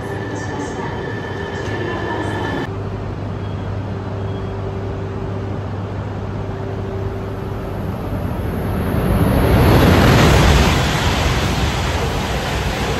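An E5-series Hayabusa shinkansen, coupled with a Komachi, running through the station at speed without stopping: a rush of noise that builds and peaks about ten seconds in, staying loud afterwards. In the opening seconds an arriving E3-series train gives a steady motor whine, then a platform hum.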